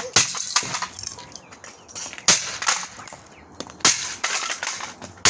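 Old plastic cordless phone being smashed: hard blows every couple of seconds, with plastic cracking and loose pieces rattling between them.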